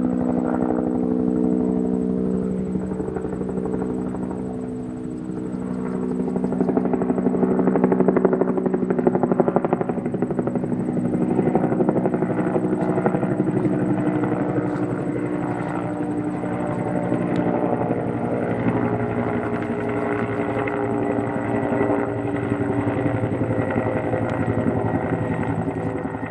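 Helicopter flying past, its rotor blades beating in a rapid chop over a steady engine tone. It grows louder to a peak about eight to ten seconds in, then carries on at a slightly lower level.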